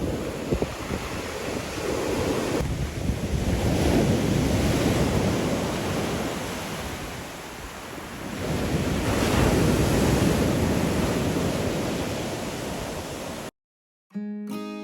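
Sea waves washing in on a beach, swelling and falling back twice, with wind buffeting the microphone. The sound cuts off suddenly near the end, and acoustic guitar music starts.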